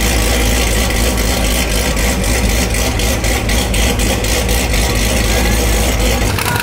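A loud, high-powered car engine idling with a deep, steady rumble, running rough enough that the car 'doesn't even want to stand still'. The low note shifts slightly near the end.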